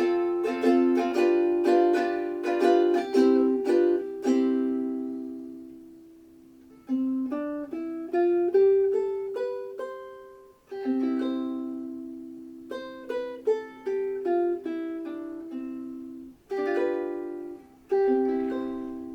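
Seilen SLMT-1380 mini tenor ukulele, with a Madagascar rosewood top, sides and back, played solo: a quick run of chords for the first four seconds that is left to ring out, then picked melodic phrases and chords with short pauses between them, ending on a chord that rings on.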